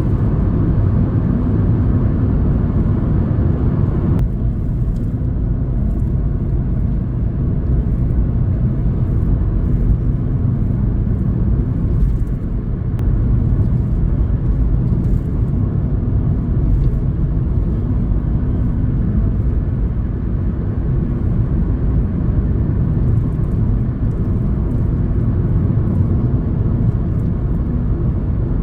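Vehicle driving steadily along a road: a continuous low rumble of engine and road noise, with the higher hiss easing slightly about four seconds in.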